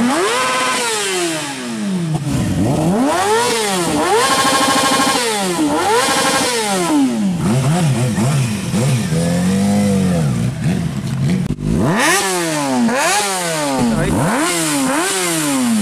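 Kawasaki ZX-6R sport bike's inline-four engine revved repeatedly while standing still, each rev rising sharply and falling back to idle. After a break about 12 seconds in come quicker, shorter revs, about one a second.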